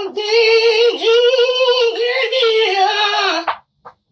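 A high voice singing a long held note with a wavering vibrato. It stops about three and a half seconds in.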